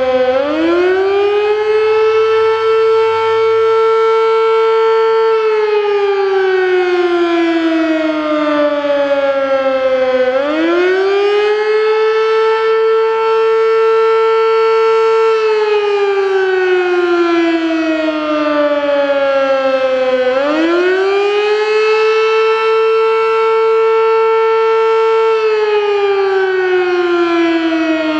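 Sterling Model M 8/16-port electromechanical warning siren sounding the attack signal, here the weekly fire test. Its wail rises quickly, holds for about five seconds, then slowly falls, starting over about every ten seconds, three times.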